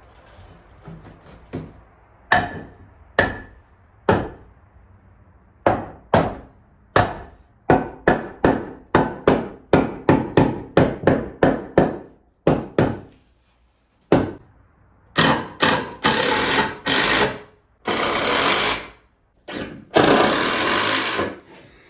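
A hammer strikes wood, first in scattered blows and then in a quick run of about three a second. In the second half come several bursts of a power tool, each one to two seconds long.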